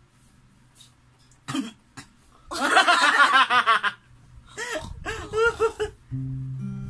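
A man bursting into hearty, coughing laughter in two loud bouts, with others laughing along. Near the end a low acoustic guitar note rings out and slowly fades.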